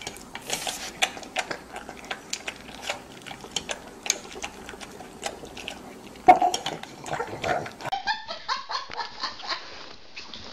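A pug eating dry kibble from a stainless steel bowl: quick crunching and clicking of kibble against the metal, with one loud clunk about six seconds in. After a cut near the end, a few short pitched sounds follow.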